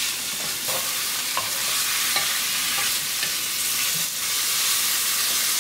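Marinated chicken pieces sizzling in oil in a square nonstick pan over high heat, a steady frying hiss, with a spatula scraping and lightly clicking against the pan as the pieces are stirred.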